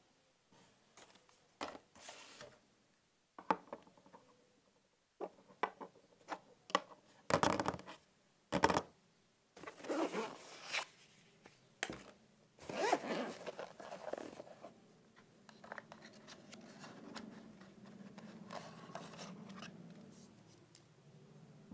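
Hands handling GoPro accessories and packaging on a wooden desk: a string of separate clicks, taps and knocks as a rubber protective sleeve is handled and parts are set down, then from about two-thirds of the way through a steadier, softer rustling and scraping as the camera is handled in its plastic case.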